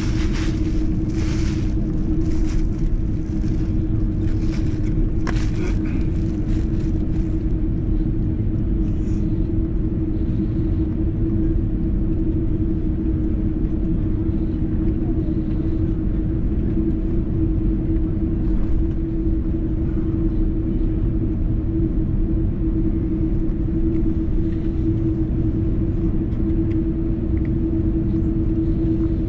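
Cabin noise inside an Airbus A330-300 taxiing after landing: a steady low rumble with a constant hum. Short rattles come through in the first several seconds.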